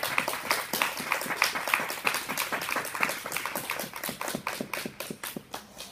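Applause for a finished skating program, with the individual hand claps distinct. It thins out and fades, stopping at the very end.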